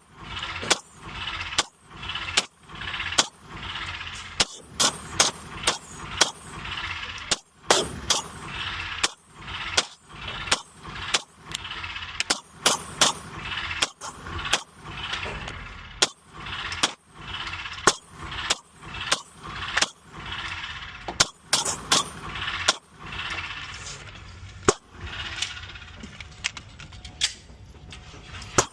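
Single gunshots from a 9mm CMMG Banshee fired in steady succession, roughly one to two shots a second, with a short pause now and then.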